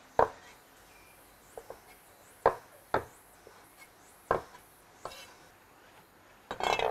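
Kitchen knife chopping on a wooden cutting board: about five sharp, single chops at irregular intervals, with a few lighter taps between them.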